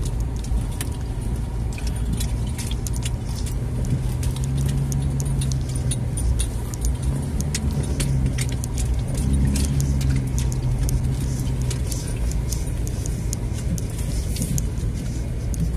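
Pickup truck engine running low and steady, heard from inside the cab while creeping over a rough dirt track, with frequent light rattles and clicks throughout.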